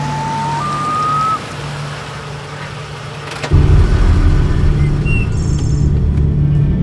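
Two-stroke chainsaw engine running steadily, then suddenly much louder and heavier about three and a half seconds in, as it is revved up.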